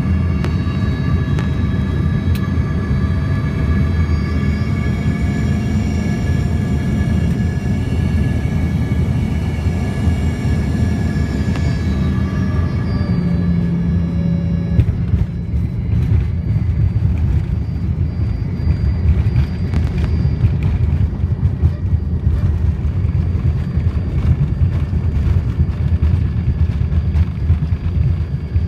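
Jet airliner landing, heard from inside the cabin: the engines' whine, several steady tones over a deep rumble, sinks slightly in pitch and fades about 12 to 15 seconds in, then touchdown gives way to the rumble of the rollout on the runway with many knocks and rattles.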